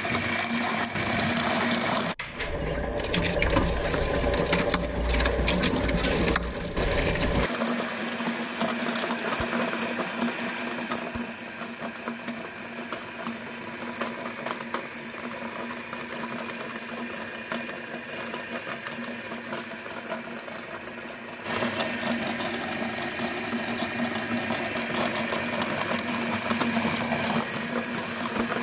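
Electric meat grinder running with a steady motor hum while it grinds rubber bouncy balls into crumbs, starting abruptly. The sound turns rougher and heavier in the low end from about two to seven seconds in, and gets louder again about twenty-one seconds in.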